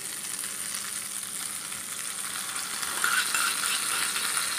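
Hot tempering oil with mustard seeds, urad dal and curry leaves sizzling as it is poured from a small tadka pan into coconut chutney. From about three seconds in it crackles more, as a spoon scrapes the last of the tempering from the pan.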